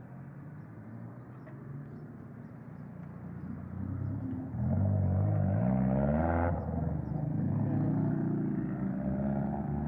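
QJ Motor SRK 400 motorcycle engine running through a Benelli 302 exhaust with half a serpentine. It idles quietly at first, then is revved hard about halfway through, drops back, and is held at higher revs near the end.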